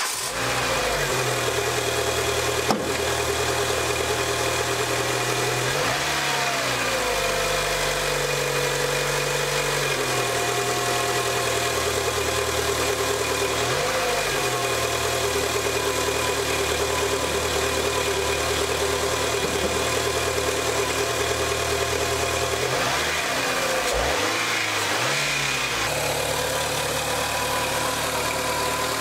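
A Renault Megane's four-cylinder petrol engine, just fitted with new spark plugs and ignition coils, starts and idles steadily. The throttle is blipped a few times: once about six seconds in, briefly around fourteen seconds, and twice more near the end. There is a single sharp click about three seconds in.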